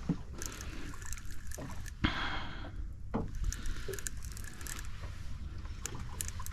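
Water sloshing around a small fishing boat over a steady low rumble, with scattered light clicks and a short burst of hiss about two seconds in.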